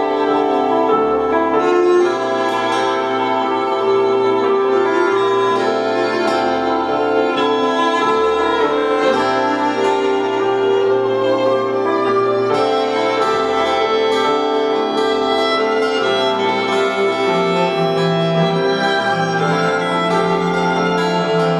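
Live instrumental band music, with a violin playing long held notes over the ensemble. A lower held note enters about 17 seconds in.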